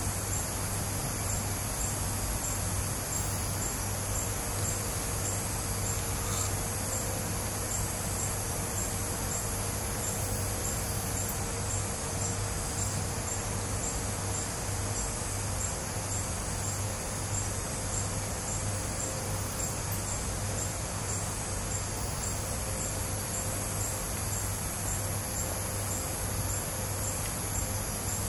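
Night insect chorus: a steady high trill with a regularly pulsing chirp, over a low steady hum.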